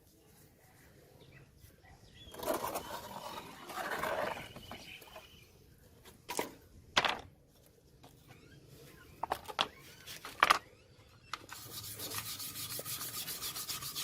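Hand work on a rusty steel knife: a rubbing scrape, then several sharp clicks and knocks. Near the end a fast, even scrubbing starts, as in rust removal.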